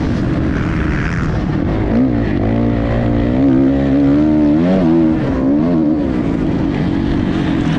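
Motocross dirt bike engine heard from on the bike, revving up and down with the throttle, its pitch rising and falling several times as it is ridden around a dirt track.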